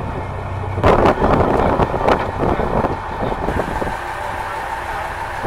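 Fishing boat's engine running steadily, with brief gusts of wind noise on the microphone about one and two seconds in.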